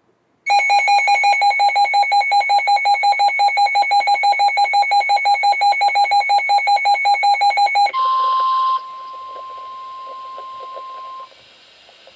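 Weather radio receiver sounding its alert: a loud, rapidly pulsing beep, about six pulses a second, for roughly seven seconds. A short burst follows, then the steady single-pitch NOAA Weather Radio warning alarm tone for about three seconds, the signal that a warning is about to be read.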